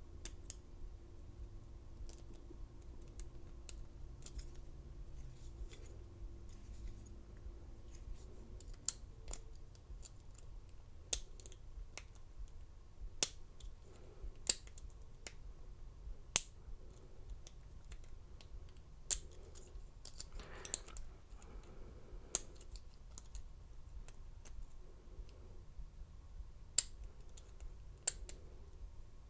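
Lock pick and tension wrench working the pins of a Commando steel laminated padlock during single-pin picking: small sharp metallic clicks and scrapes at irregular intervals, as the pins are lifted and set against spool pins.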